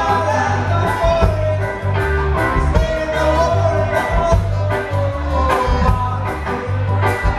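Background music: a song with a singing voice over a bass line and a steady beat.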